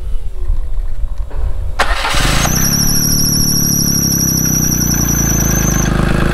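John Deere Gator's inline three-cylinder DOHC engine turning over on a newly fitted starter, catching about two seconds in and settling into a steady idle. A high, wavering squeal rides over the engine for about three seconds after it catches, then stops.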